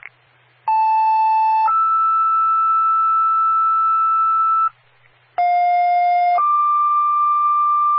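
Fire dispatch two-tone sequential paging tones over the radio: a lower tone for about a second stepping up to a higher tone held about three seconds, then a short gap and a second, different tone pair in the same pattern. They are the alert tones sent to page the two fire companies being added to the assignment.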